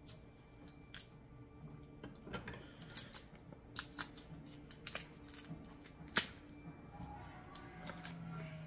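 Kitchen shears snipping through the shell of a king crab leg: a series of sharp clicks and cracks, the loudest about six seconds in.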